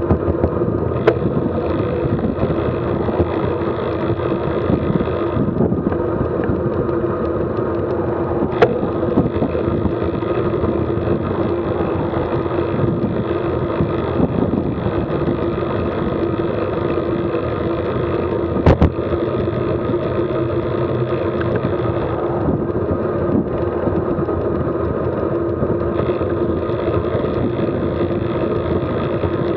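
Steady rolling road noise of a road bike on a paved path, picked up by a handlebar-mounted camera, with a constant hum and a few sharp knocks about 1, 9 and 19 seconds in.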